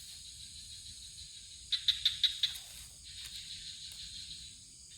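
Night insects chirring steadily at a high pitch, with a quick run of about five loud, sharp clicks about two seconds in.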